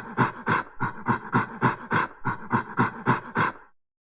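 An ape calling in a quick run of short panting hoots, about four a second, which stops just before the end.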